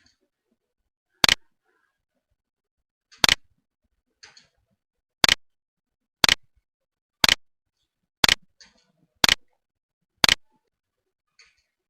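A series of sharp, loud clicks, mostly about one a second, with a few fainter ticks between them.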